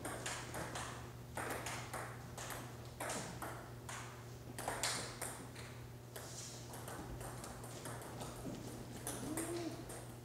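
Table tennis ball clicking off rubber paddles and the table in a quick doubles rally: many sharp, irregularly spaced knocks.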